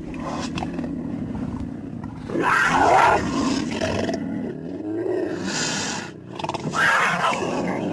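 Big-cat growls and roars in a string of calls over a continuous low rumble, the loudest about two and a half seconds in and another near the end.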